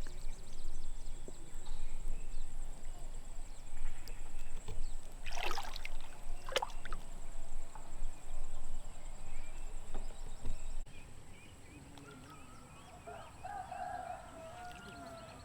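Water sloshing and splashing, with two sharp knocks about five and six and a half seconds in; it grows much quieter for the last few seconds.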